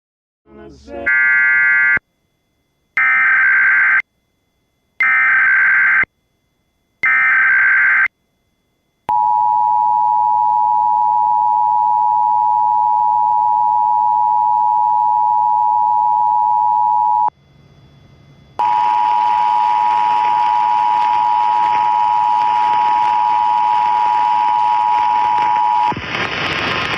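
Emergency Alert System tones: four short screeching data bursts of the SAME header, then the EAS two-tone attention signal (853 and 960 Hz sounding together). The attention signal breaks off briefly about halfway and then resumes.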